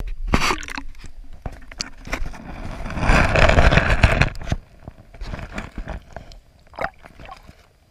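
A camera being dipped into lake water: knocks and scrapes of handling, then a burst of rushing, splashing water noise about three seconds in that fades after a second and a half into scattered muffled underwater clicks.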